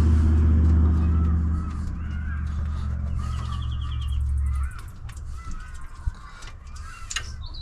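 A steady low engine hum from a nearby vehicle, which stops abruptly a little past halfway. Birds call through it in short, repeated chirps.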